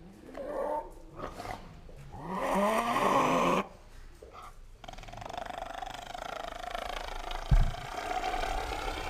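Kangaroo growling: a few short growls, a louder one about two and a half seconds in, then a long, drawn-out growl. A single thump near the end.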